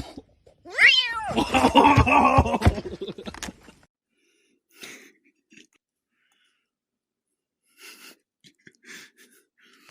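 A cat's loud, drawn-out yowl lasting about three seconds, opening with a falling cry. After it there are only a few faint, short sounds.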